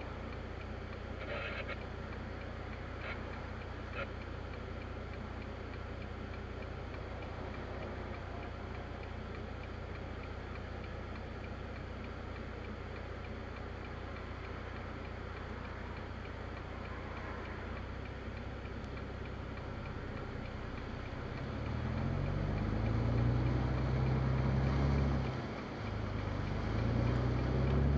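Vehicle engine heard from inside the cab, running low and steady, with a few faint clicks in the first seconds. About 22 seconds in the engine grows much louder as the vehicle pulls away, dips briefly and pulls again near the end.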